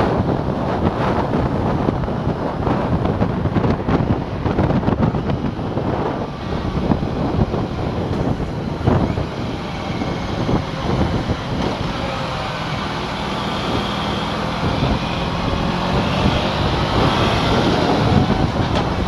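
Aprilia RS4 125's single-cylinder four-stroke engine running on the move, under heavy wind rush on the helmet-mounted microphone. The wind eases about halfway through as the bike slows, leaving the engine note clearer, and the note rises near the end as it picks up speed again.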